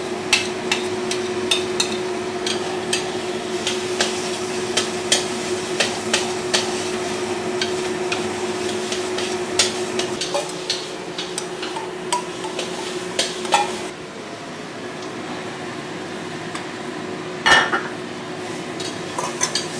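A metal spatula and spoon scraping and tapping against a stainless steel wok while bean paste fries slowly on a low flame with a light sizzle, over a steady hum. About three-quarters of the way through there is one louder metal clang.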